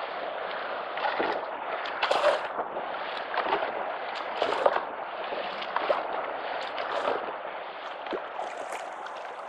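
Steady rush of moving river water, with a paddle splashing in it roughly once a second.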